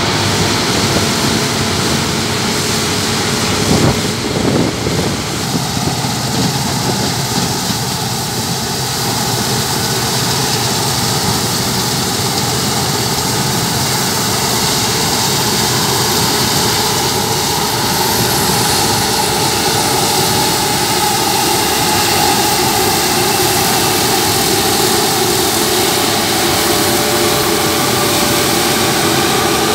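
Claas Lexion 600 combine harvester working a grain crop: its engine and threshing machinery run steadily under load as the header cuts standing grain. There is a brief thump about four seconds in.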